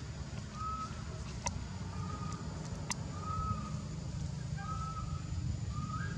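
A bird calling, a short level note repeated about once a second, over a steady low rumble, with two sharp clicks in the first half.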